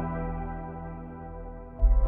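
Background music: slow ambient music with long held chords that fade down, then a new, louder chord with a deep bass enters near the end.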